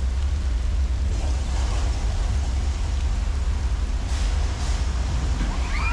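Steady low rumble of the studio tour tram with a noisy rush of water over it, from a staged flash flood released down the hill from large tanks.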